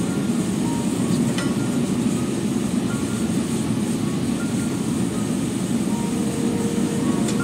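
Steady low roar of a blacksmith's forge running, with a faint click about a second and a half in.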